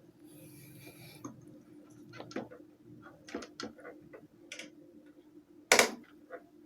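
Irregular light clicks and taps of an electric fan's motor parts being handled during oiling, with one louder knock near the end, over a faint steady hum.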